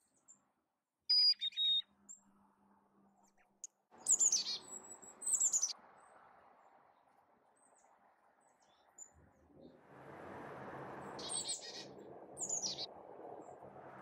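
Carolina chickadee calls: a short pair of high, thin notes about a second in, a cluster of sharp high calls falling in pitch a few seconds later, and two more calls near the end. A soft, even background rush grows louder in the second half.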